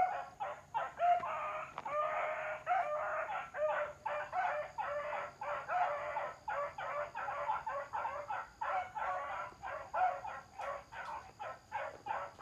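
Several four-month-old pups barking and yelping over one another, a fast run of high calls several times a second that keeps going throughout.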